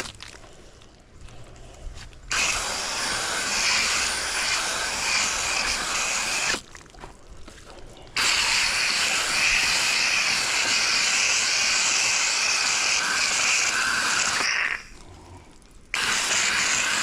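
Garden hose with a hose-end sprayer spraying diluted coil cleaner into a heat pump's condenser coil: a steady hissing spray that starts about two seconds in and cuts off twice for a second or so.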